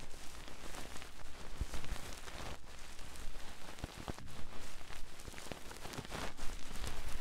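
ASMR ear-massage sounds made right on the microphone: fast scratching and rustling that gives a dense, even crackle with scattered sharp clicks.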